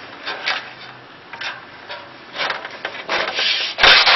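Aluminium wall profile of a sliding shower door being pulled out by hand along its U channel, the adjustment channel that lets the frame fit the bathroom. Aluminium rubs and scrapes on aluminium in uneven strokes that grow louder, with the loudest near the end.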